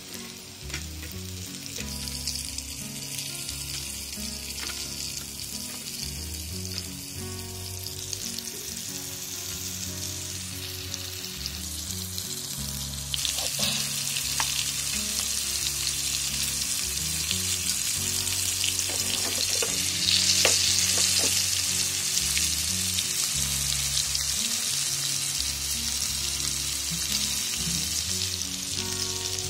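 Rice-flour-coated sole fillets frying in hot oil in a shallow pan, a steady high sizzle that gets louder about thirteen seconds in and is loudest around twenty seconds. There are a few light clicks in the sizzle.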